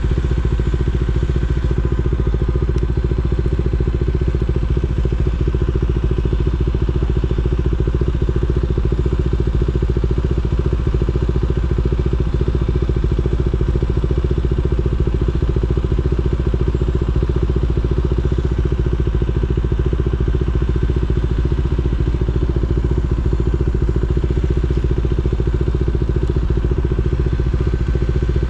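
KTM Duke 390's single-cylinder engine idling steadily, its pitch unchanging throughout.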